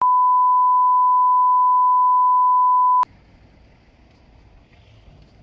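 A single loud, steady electronic beep at one pitch, held for about three seconds and then cut off abruptly, like a censor bleep or test tone. Faint background noise follows it.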